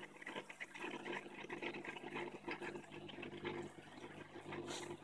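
Aquarium water bubbling and trickling, over a steady low hum. A brief hiss comes near the end.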